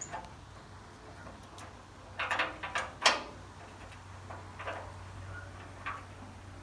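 Metal hand tools clicking and clinking against a stuck tractor fender bolt, a few scattered clicks with a small cluster about two seconds in and the sharpest about three seconds in.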